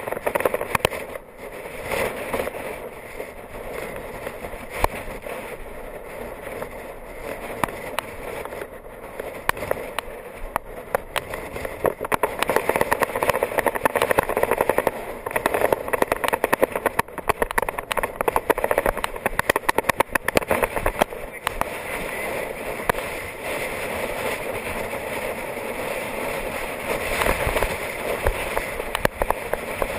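Wind rushing and buffeting over the camera microphone on a road bike, with crackling and the hiss and rattle of the tyres on tarmac, growing louder about halfway through.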